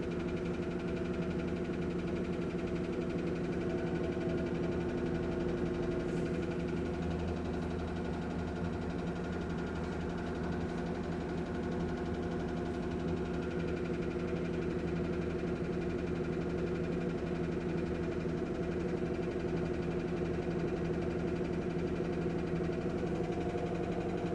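Samsung top-load washing machine in its spin cycle, giving a steady droning hum with several held tones over a rough low rumble. This is the spin-time noise that the owner reports as a fault.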